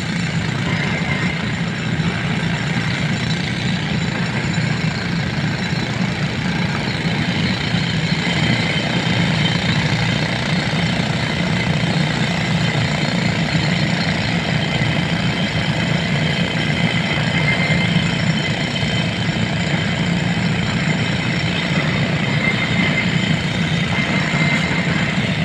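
Hyundai excavator's diesel engine running steadily, with a thin high tone that fades in and out.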